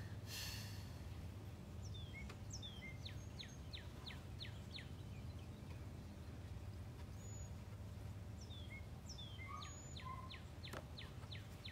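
A bird singing runs of short, quickly falling whistled notes, about three a second, over a steady low outdoor rumble, with a brief rustling noise near the start.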